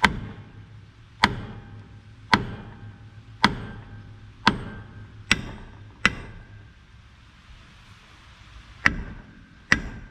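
Hammer blows on steel, about nine strikes spaced roughly a second apart with a pause of a few seconds before the last two, each leaving a short metallic ring. The part being driven is stuck tight and not yet coming off.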